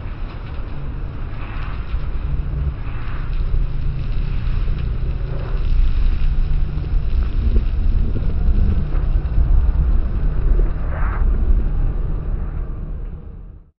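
A deep, steady rumbling drone with a noisy hiss above it. It grows louder after the first few seconds, then fades out to silence shortly before the end.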